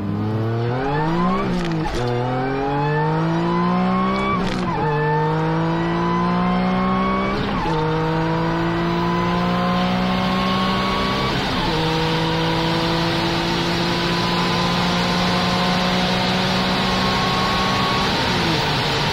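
Honda NSX V6 heard from inside the cabin accelerating hard through the gears: the engine note climbs steadily in each gear and drops at every upshift, about five shifts, each gear pulling longer than the last.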